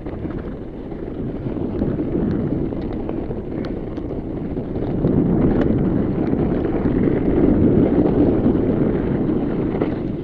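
Wind buffeting the action camera's microphone, over the rumble of fat-bike tyres rolling on a trail at speed, with scattered small clicks and rattles. It grows louder about halfway through.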